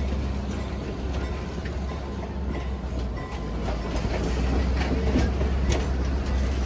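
Steady low rumble of a vehicle in motion, with scattered clicks and knocks that come thicker over the second half.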